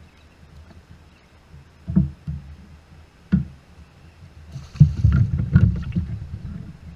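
Thuds and knocks against a fishing kayak's hull. There are single bumps about two and three seconds in, then a busier run of knocking and rattling around five to six seconds in.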